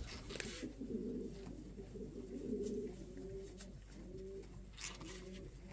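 Pigeons cooing in a barn: short, low coos repeated about every half second, with faint clicks between them.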